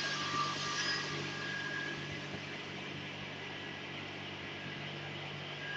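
A steady low hum under an even hiss, like a machine running continuously in the background, with no distinct events.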